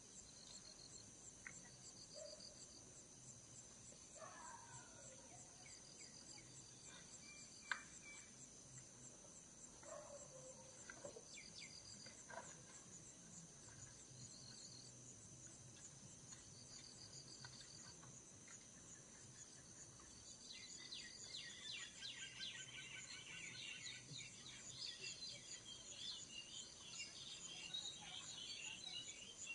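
Faint night insect chorus: a steady, high cricket trill with short chirps every few seconds. From about 20 s in, a denser, louder chatter of chirping calls joins it.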